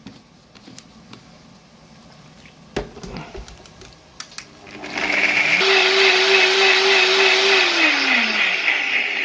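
An electric blender switches on about five seconds in and whirs loudly, blending garlic cloves with water into garlic juice. Its motor pitch drops away near the end as it winds down. A few light knocks come before it starts.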